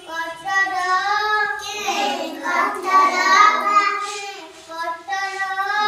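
A group of small children singing a song together in unison, in sung phrases with short breaths between them. The recording is played back sped up, which raises the voices' pitch.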